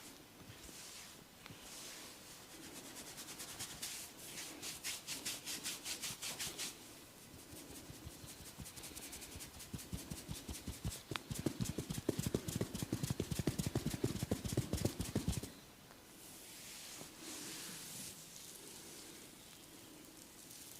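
Massage by hand: brisk rubbing strokes over skin, then about five seconds of rapid hand strikes in quick succession, the loudest part, as in percussive tapping massage.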